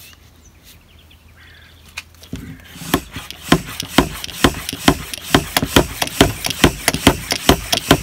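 Hand-pump garden pressure sprayer being pumped up, quick regular strokes about four a second starting a couple of seconds in. The sprayer seems to be leaking pressure somewhere.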